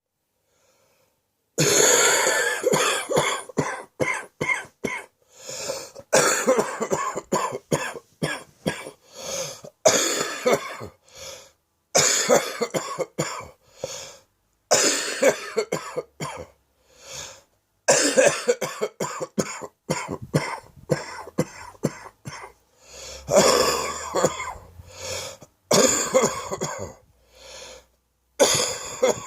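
A man coughing a deep chest cough in repeated fits of several sharp coughs each, the first starting about a second and a half in.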